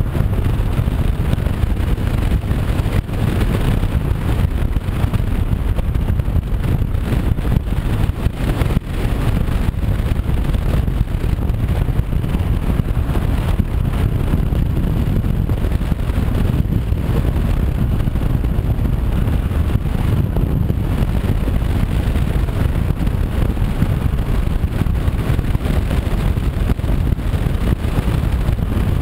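Steady wind rush buffeting the microphone of a Honda CB500X motorcycle riding at road speed, with the bike's engine and road noise mixed in beneath.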